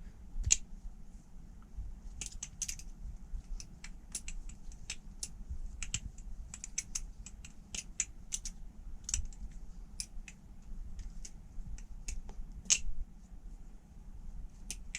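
Balisong trainer, a Kraken clone, being flipped: its metal handles click and clack in sharp, irregular strokes, now singly and now in quick clusters.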